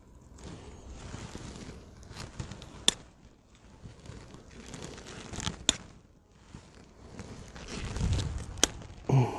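Close rustling and handling noise with three sharp clicks spaced a few seconds apart, and a short low pitched sound near the end.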